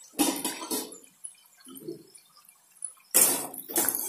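Metal utensils scraping and clinking in a stainless steel kadai of hot frying oil: a short burst just after the start and a louder one about three seconds in, as a wire-mesh skimmer goes in to lift out the fried brinjal slices.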